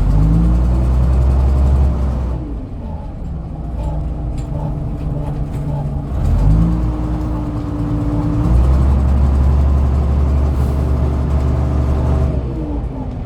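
Dennis Dominator double-decker bus's diesel engine and drivetrain under way. The pitch rises at the start and rises again about six seconds in, holding steady between, then winds down near the end as the bus eases off.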